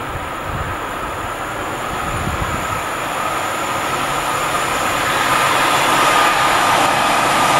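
Siemens Eurosprinter E189 electric locomotive hauling a container freight train through a station at speed, its wheel and rail noise growing steadily louder as it approaches. A thin steady whine comes up in the noise from about three seconds in.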